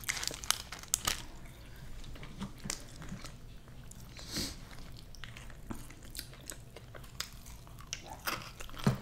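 Close-miked mouth sounds of eating fried chicken wings: biting and chewing with irregular wet smacks and crisp clicks.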